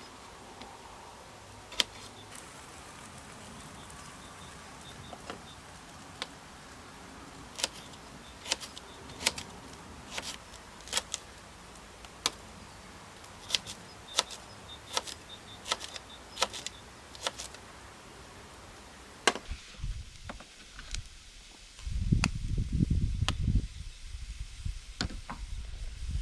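Irregular sharp clicks and pops over a steady faint hiss. About twenty-two seconds in, a loud low rumbling noise comes in, with more clicks over it.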